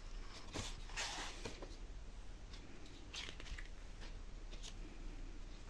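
Pages of a picture book being turned by hand: soft paper rustles and handling noise, about half a second in and again about three seconds in.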